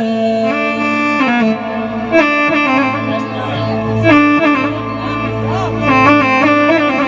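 Instrumental music with a reedy, saxophone-like lead melody of held notes stepping up and down in pitch, with a few short slides, over a steady low drone.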